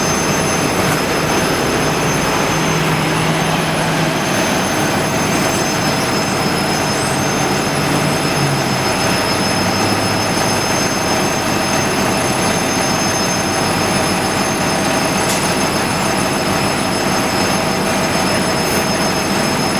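Orion VII NG hybrid bus running, with a steady high-pitched whine made of several fixed tones over a broad running noise: the strange sound this bus makes. A lower hum steps down in pitch a few times in the first half.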